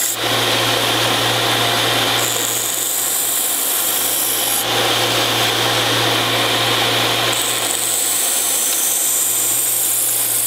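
Central Machinery belt sander running with a steady motor hum while the steel blade of a railroad-spike knife is ground against the belt. The grinding changes in tone every two to three seconds as the blade is moved along the belt.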